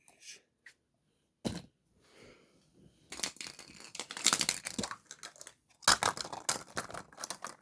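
A wrapper crinkling and tearing as it is pulled open by hand, with a sharp click about a second and a half in and two longer spells of crackling.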